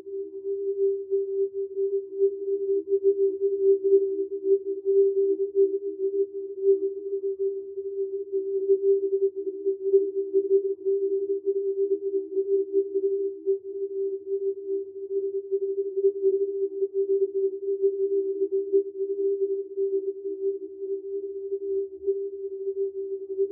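Sustained electronic drone of two close, steady low tones that waver rapidly in loudness, with no melody or beat.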